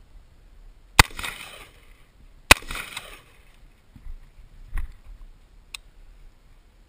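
Two rifle shots from an M4 carbine about a second and a half apart, each followed by a short echo, then two lighter clicks.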